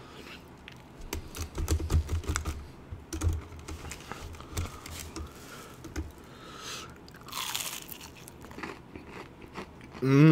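Close-miked eating: crunchy bites into a crispy panko-fried katsu cutlet, followed by crackling chewing. A loud voiced hum comes in right at the end.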